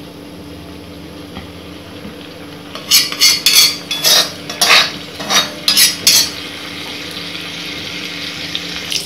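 Mustard seeds and chana dal sizzling gently in hot oil in a black kadai, the tempering stage before they turn red. From about three seconds in, a spatula scrapes and clinks against the pan in a quick run of about ten strokes for some three seconds, then the sizzle carries on.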